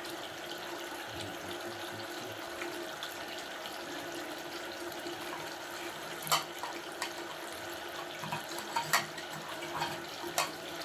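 A drain-cleaning cable machine spinning its cable inside a clogged bathroom floor drain, a steady running noise with a hum. A few sharp knocks from the cable sound in the second half.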